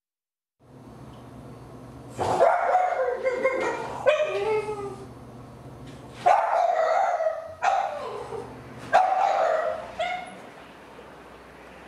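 Several loud, pitched vocal cries, each a second or so long, over a low steady hum that starts just under a second in.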